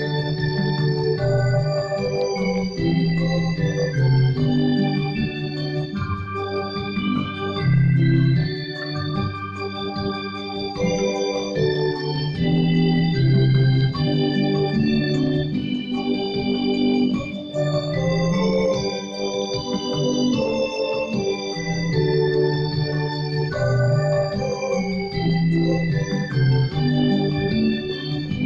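An organ playing held chords over a moving bass line, the notes changing step by step.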